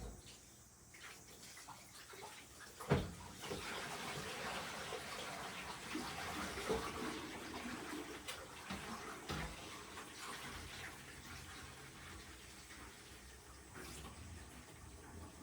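Tap water running into a kitchen sink during dishwashing, with a few small clinks. It starts just after a sharp knock about three seconds in and gets quieter in the second half.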